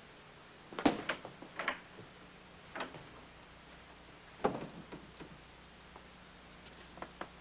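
A few scattered knocks and thuds, the loudest about a second in and another about four and a half seconds in, over a faint steady hum.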